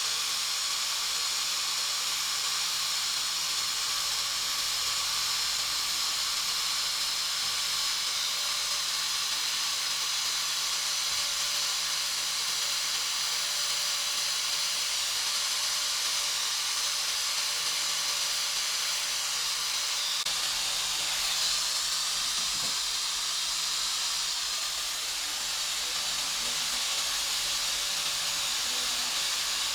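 A steady hiss, with no break or change in level.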